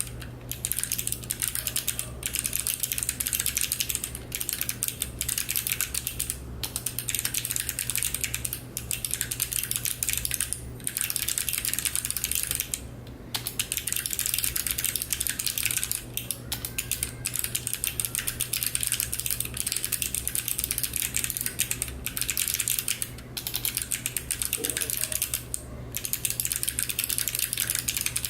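Fast typing on a mechanical keyboard with clicky Kailh Box Navy switches, ABS keycaps and an aluminium case: a dense stream of sharp clicks that breaks off briefly every few seconds. A steady low hum lies underneath.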